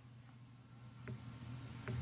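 Quiet studio room tone: a faint, steady low hum, with two small clicks, one about a second in and one near the end.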